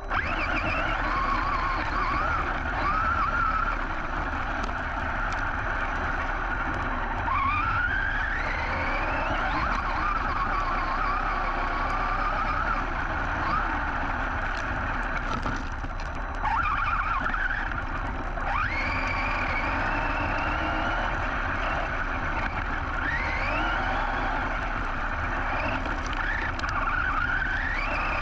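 Brushless electric motor of a Team Associated Rival MT10 1/10 RC monster truck, picked up by a camera mounted on the truck. Its whine rises again and again with bursts of throttle, over a steady rushing noise as the truck drives over dirt.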